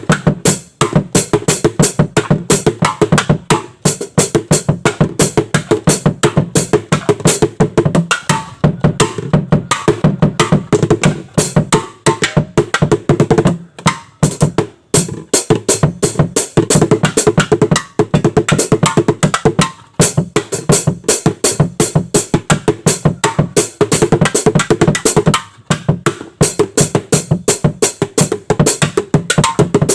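Improvised drum kit made of tin cans and used buckets, played in a fast, busy groove of dense strokes with a few short breaks.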